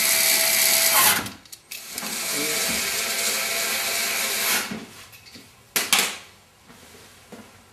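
Cordless electric screwdriver driving screws into threaded inserts in plastic camper panels. One run stops about a second in, then a second run lasts about two and a half seconds. A single knock comes about six seconds in.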